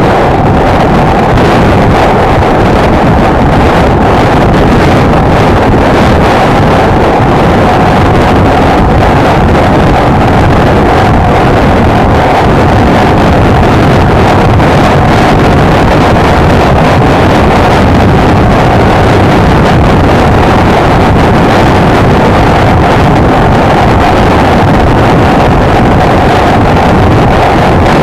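Honda XLR125R's single-cylinder engine running at a steady cruise, its note holding even with no revving, under heavy wind rushing over the microphone.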